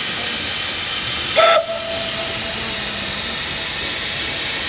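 A narrow-gauge steam locomotive gives one short toot on its whistle about a second and a half in. The tone trails off over the following second, over a steady hiss.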